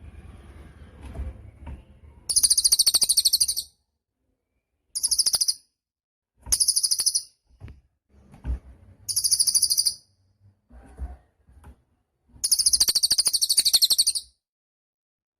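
Cililin songbird singing: five bursts of very high, rapid trilling, from half a second to two seconds long, separated by pauses. A low rumble of background noise sits under the first second or so.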